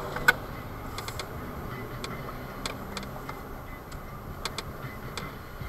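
Steady low hum of a vehicle running, heard from inside the cab, with about ten sharp clicks at irregular intervals.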